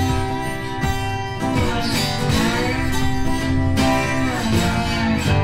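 Background music, a guitar-led track.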